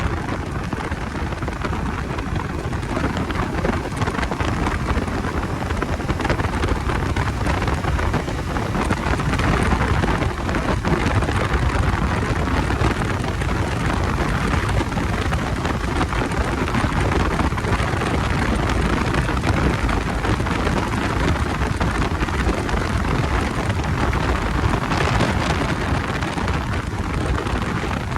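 Steady wind rush buffeting the microphone, mixed with road and engine noise, while riding a Bajaj Dominar 250 motorcycle.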